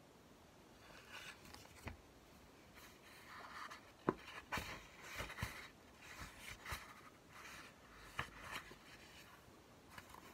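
Paperback books handled: pages and covers rustling as a book is opened and leafed through, with several light knocks of a book against the table, the sharpest about four seconds in.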